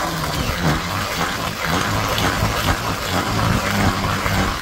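Heavy rain and gusting wind hitting the microphone: a loud, dense hiss over a low rumble, cutting off abruptly at the end.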